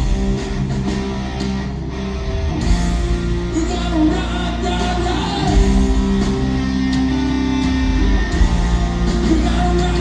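Live hard-rock band playing: electric guitar over bass and drums, with singing.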